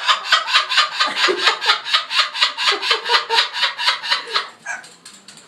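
A parrot imitating human laughter: a long, fast run of 'ha-ha-ha' calls, about five or six a second, that dies away about four and a half seconds in.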